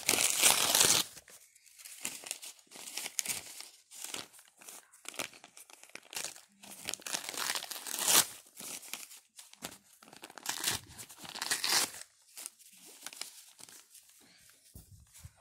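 Paper sheets being handled, crinkled and torn by hand in irregular bursts, loudest in the first second and again about eight seconds in.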